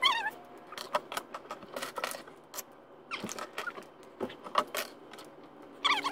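Plastic Lego bricks clicking and rattling as pieces are handled and picked through, with a few short high squeaks.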